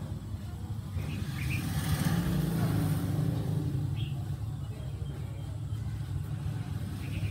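Steady low rumble, swelling for a second or so about two seconds in, with a few faint short high chirps.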